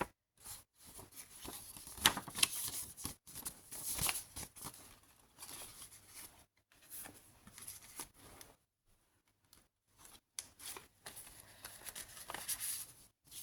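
Paper rustling and crinkling in irregular short bursts as the pages and tucked-in papers of a thick handmade junk journal are turned and handled.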